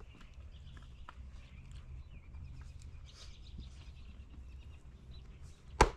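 Birds chirping faintly over a low steady rumble, then one sharp axe strike on firewood near the end.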